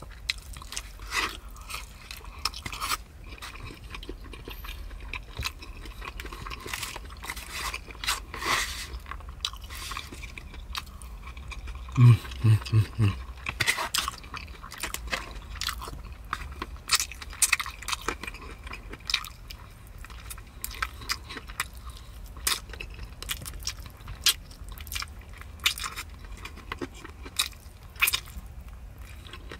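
Close-miked chewing and biting of a person eating, a steady run of small wet clicks and mouth sounds. The loudest moment, about twelve seconds in, is a quick run of four low pulses.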